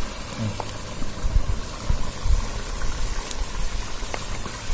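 An open wood cooking fire being fed with dry sticks: a few faint clicks of the sticks over a low, uneven rumble.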